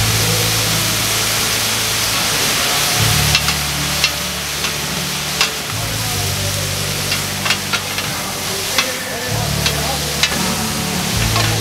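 Pork intestines (makchang) with green onion and whole garlic sizzling on a hot flat iron griddle, a steady frying hiss. From about three seconds in, a spatula scrapes and stirs the pieces, clicking sharply against the griddle every second or so.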